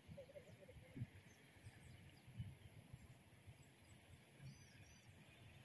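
Near silence: faint outdoor ambience with a few soft low bumps, and two tiny high chirps near the end.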